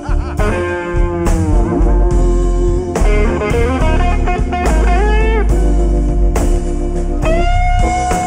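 A live jazz-blues band of alto saxophone, organ, drums and electric guitar playing a slow blues instrumental passage. Lead lines of bent and held notes run over a sustained organ bass and a steady drum beat, with one long held note near the end.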